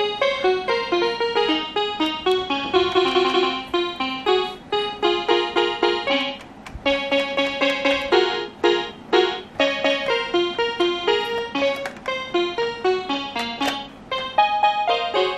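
Electronic keyboard playing a quick melody of short single notes in running phrases, with a brief lull about six and a half seconds in.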